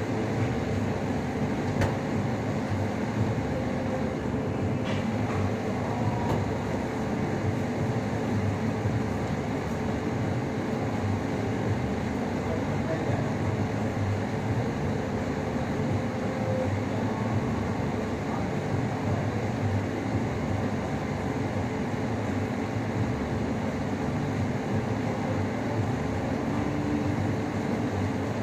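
Steady, even ventilation noise from a commercial air-handling system, with no rhythm and no change.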